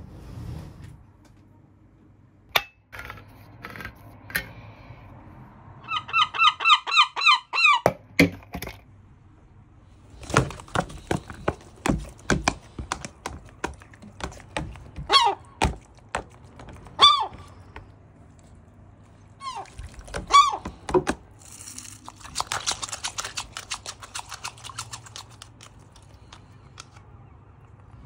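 Herring gull pecking tuna out of a plastic tub, its bill knocking in quick sharp taps against the plastic. A fast run of short squeaky calls comes about six seconds in, and single calls break in a few times later.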